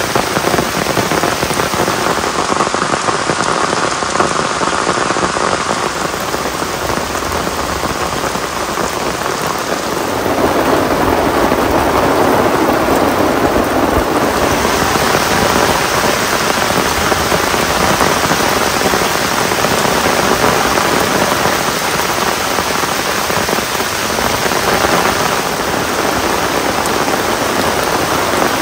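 Heavy rain pouring steadily, a dense hiss of drops. For a few seconds near the middle the sound grows fuller and lower.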